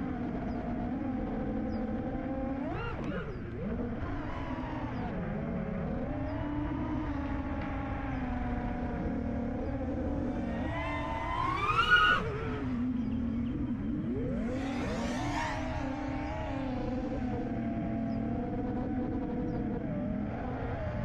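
FPV freestyle quadcopter's four 2306 1750 kv brushless motors and propellers whining, the pitch rising and falling with the throttle. A steep climb in pitch to the loudest moment about twelve seconds in marks a hard punch of the throttle, with another rise and fall a few seconds later.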